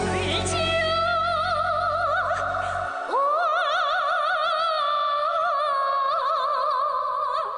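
Song playback with a singer's voice. About three seconds in the bass drops out and the singer holds one long high note with wide vibrato for about four seconds.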